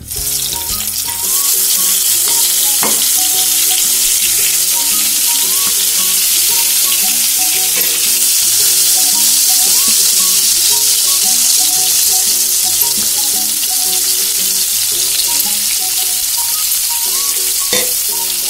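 Eggplant slices frying in hot oil in a non-stick pan: a loud, steady sizzle that starts suddenly as the first slice goes in. A couple of light clicks come as more slices are laid in.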